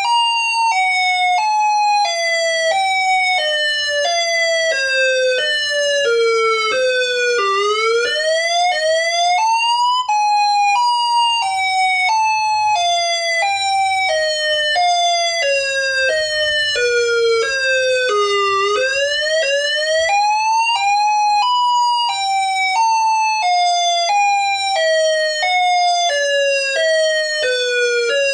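Ion Pathfinder outdoor warning siren sounding an alternate wail, simulated from sampled sounds. The pitch falls in small pulsing steps over about eight seconds, then sweeps quickly back up, and this repeats.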